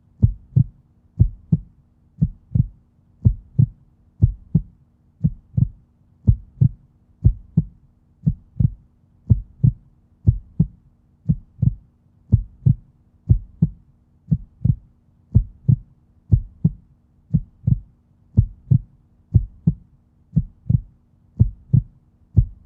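Human heartbeat, a steady lub-dub with each beat a pair of low thuds, at about three beats every two seconds.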